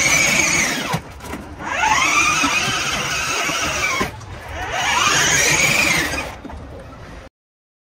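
Electric motors and gearboxes of a kids' battery ride-on jeep whining, rising and falling in pitch three times as it drives in short bursts, with a low rumble of the plastic wheels on tile. The sound cuts off abruptly near the end.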